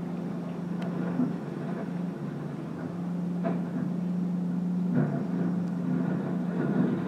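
Tracked hydraulic demolition excavator working: its diesel engine runs steadily, with a few sharp knocks and crashes of concrete and debris as the arm tears at the building, about a second in, a little after midway and about five seconds in.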